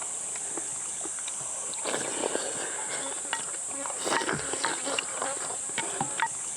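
A steady, high-pitched chorus of summer insects, over close eating noises: short clicks and brief bouts of chewing or slurping, busiest about two and four seconds in.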